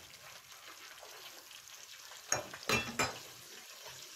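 Ghee and oil sizzling faintly in a pot on the stove with flour just tipped in for a béchamel roux. Three short clinks of kitchenware come between two and three seconds in.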